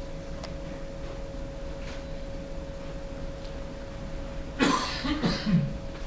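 A person coughs two or three times in quick succession about four and a half seconds in, over room noise with a faint steady tone that runs throughout.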